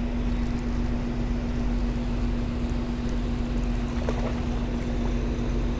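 A motor running steadily, a constant low hum with one unchanging drone.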